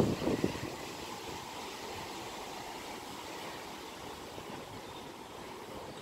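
Steady rush of a river flowing, an even hiss with no rhythm. A brief rustling rumble in the first half second, then only the water.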